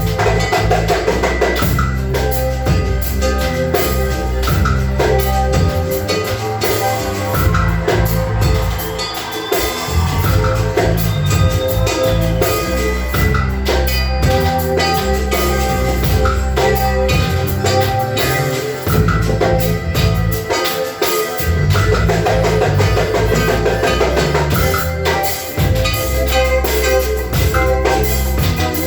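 Band music with a drum kit keeping the beat over a repeating bass line and sustained pitched instruments; the bass drops out briefly about twenty seconds in.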